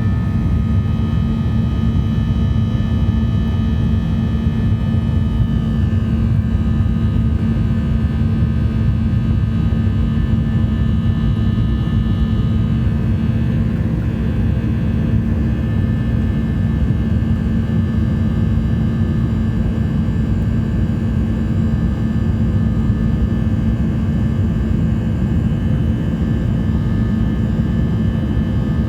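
Boeing 737-800's CFM56-7B jet engines heard from inside the passenger cabin, running steadily with a deep rumble and a constant hum.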